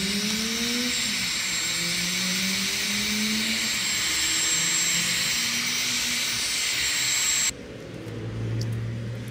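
Heat gun blowing hot air onto heat-shrink tubing over a spliced wire: a steady, loud rush of air with a thin high whine. It is switched off and stops suddenly about seven and a half seconds in.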